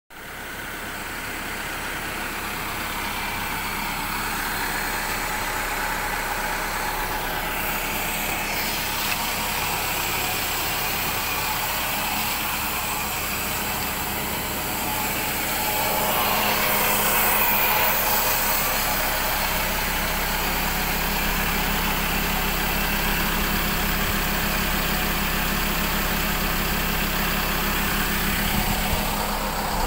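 Isuzu 4JJ1 four-cylinder turbodiesel idling steadily during a forced diesel particulate filter regeneration, with a hiss from the exhaust. It gets somewhat louder about halfway through.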